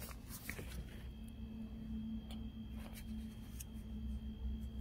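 Faint steady hum with a few light clicks, as small plastic parts of the climate control panel are handled.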